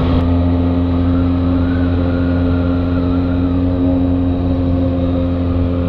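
Honda XR 250 Tornado's single-cylinder four-stroke engine running at a steady speed while the motorcycle cruises, heard from the rider's position.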